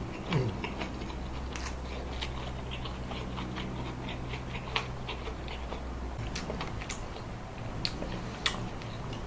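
Close-miked chewing and mouth sounds of someone eating grilled chicken, with scattered soft smacks and clicks over a steady low hum.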